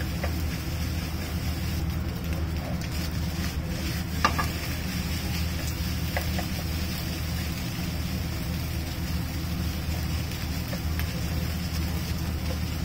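Steady low hum of background noise, with one sharp click about four seconds in.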